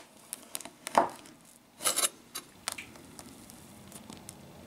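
Large knife cutting down through a chocolate-glazed cake, with several sharp knocks of the blade, the loudest about a second in, and a short run of cutting noise around two seconds in.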